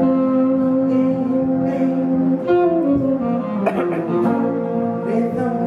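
Small traditional jazz band playing live: trombone and saxophone hold long notes over acoustic guitar and upright bass, and the horn line falls a little past halfway.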